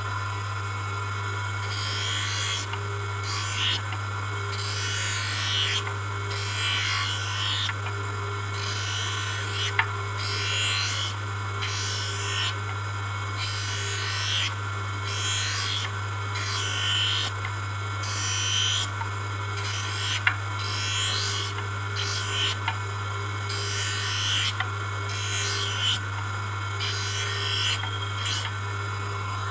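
Hand lens edger's motor runs with a steady hum while a plastic spectacle lens is pressed against the spinning grinding wheel again and again. From about two seconds in, each pass gives a short grinding rasp, roughly one every second.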